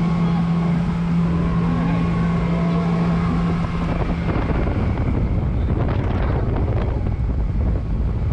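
Sea Fox motorboat running at speed, its engine drone mixed with heavy wind buffeting on the microphone. A steady low hum drops out about four seconds in.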